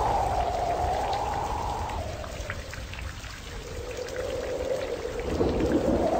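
Storm sound effect: steady rain with scattered drop ticks and a low rumble, under a howling wind whose pitch slowly sinks and fades in the middle, then swells and rises again near the end.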